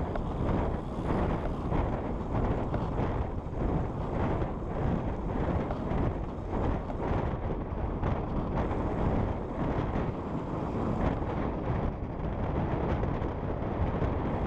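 Wind buffeting the microphone of a handlebar camera on a road bike moving fast: a steady, gusty rush of noise, heaviest in the low end.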